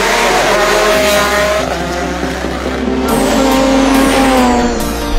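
Rally car engines revving hard, pitch climbing and dropping through gear changes as the cars pass at speed.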